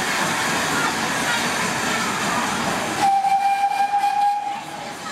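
Small saddle-tank steam locomotive: a steady rush of steam, then about three seconds in its whistle gives one steady high blast lasting about a second and a half.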